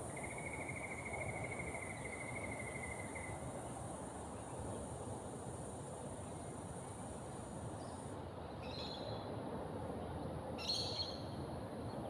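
Australian bush ambience: a steady high-pitched insect drone that stops about two-thirds of the way through, a trilling call for the first three seconds, and two short high bird chirps near the end, over a low steady background rumble.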